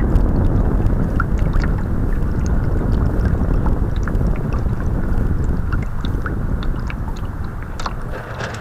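Water rushing and slapping against the hull of a radio-controlled model sailboat under way, heard from a camera on its deck, with wind buffeting the microphone and scattered small ticks and splashes. The rushing eases a little near the end.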